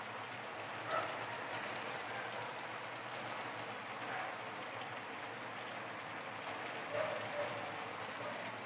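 Bicol Express (pork and string beans in reduced coconut milk) sizzling steadily in a wok over a gas burner, with a couple of small pops.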